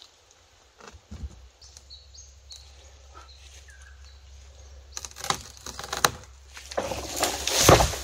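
Dry leaf litter and sticks rustling and crackling, sparse at first, then louder and busier from about five seconds in. A few faint bird chirps come in the quieter first half.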